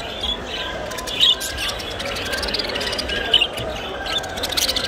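A flock of caged budgerigars chirping and chattering, many short calls overlapping.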